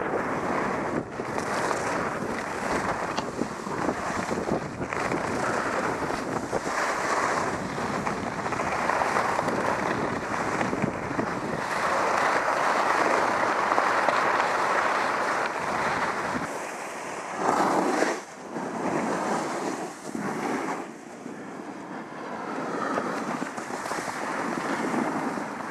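Wind buffeting the microphone of a skier's camera while skiing downhill, with skis hissing and scraping over packed snow. The deep rumble eases about two thirds of the way through, and a short louder surge of scraping or gusting follows.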